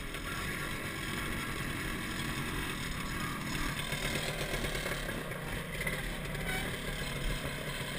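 MZ ETS 250 Trophy Sport's single-cylinder two-stroke engine running steadily as the bike rolls along slowly.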